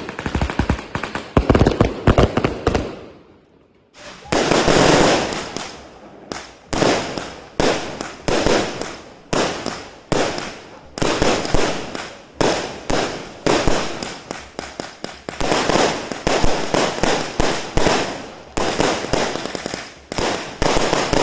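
897-shot fireworks cake firing: rapid shots and bursting cracks in quick succession. The firing fades out about three seconds in, then starts again a second later and goes on in clusters of cracks.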